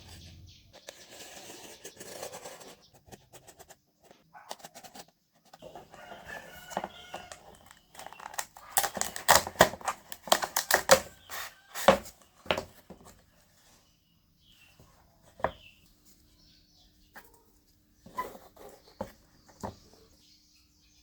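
A run of sharp clicks, taps and knocks from handwork on cardboard and small parts, thickest about halfway through, then a few single taps near the end.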